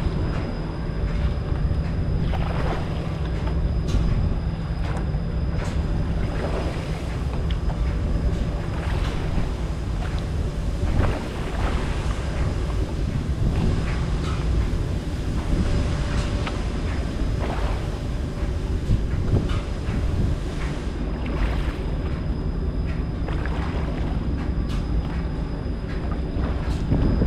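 Steady low rumble of wind buffeting the microphone on a boat at sea, with scattered short knocks and gusts through it.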